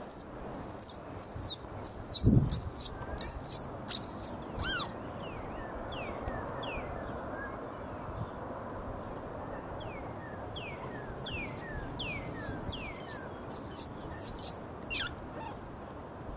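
Baby squirrel, fallen from its nest with its eyes not yet open, giving repeated shrill distress squeaks that rise and fall in pitch, about one every two-thirds of a second. The squeaks come in two runs, one at the start and another from about eleven to fourteen seconds in: a pup calling for its mother.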